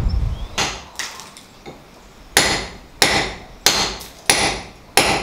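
Hammer striking a chisel to break plaster and masonry out of a wall above a doorway. A couple of softer knocks come first, then steady strikes about one and a half a second, each with a brief high metallic ring.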